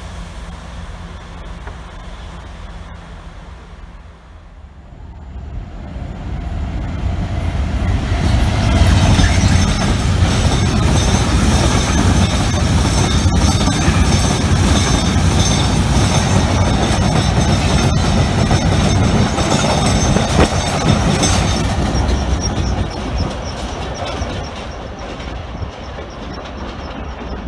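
Diesel-hauled engineering train of Network Rail wagons, worked by a Class 66 locomotive, passing close by at speed. The noise builds from about six seconds in and holds as a heavy rumble, with wheels clattering over rail joints, a few sharp knocks and a thin high wheel squeal. It fades near the end as the train draws away.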